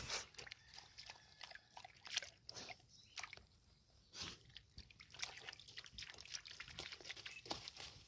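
Golden retriever playing in a shallow stream: faint, irregular small splashes and clicks of water and wet sand.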